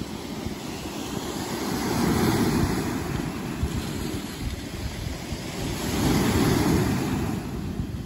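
Small ocean waves breaking on a sand beach: a steady wash of surf with a low rumble, swelling as a wave breaks about two seconds in and again around six seconds.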